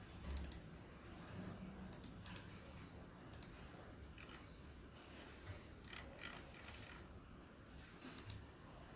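Faint, scattered small clicks, a few seconds apart, over quiet room tone.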